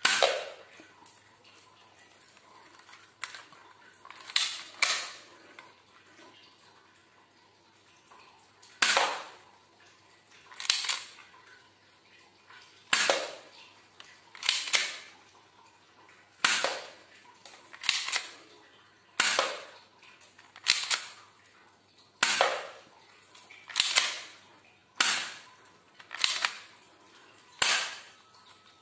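Airsoft pistol being fired over and over: about sixteen sharp cracks, one every one to two seconds, each with a short echo off bare walls. The slide is racked by hand between shots.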